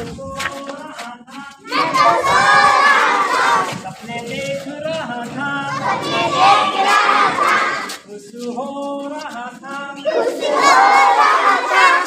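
A group of children shouting and chanting together in three loud bursts, with quieter voices in between.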